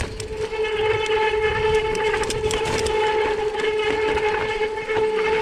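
A mountain bike rolling down a dry dirt trail, giving off a steady, high whine that holds one pitch over the rough rumble of the tyres on the dirt.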